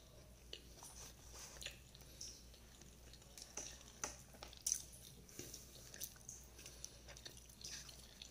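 A person chewing soft fried eggplant close to the microphone, with wet mouth smacks and scattered small clicks; the loudest smack comes a little after the middle.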